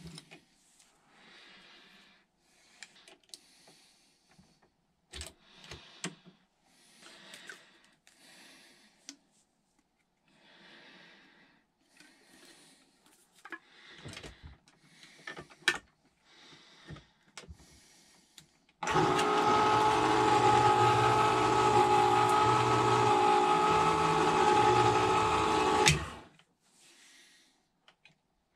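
West Bend electric can opener motor running in a steady, multi-toned hum. It starts abruptly about nineteen seconds in, runs for about seven seconds, then cuts off. Before it, only faint handling clicks.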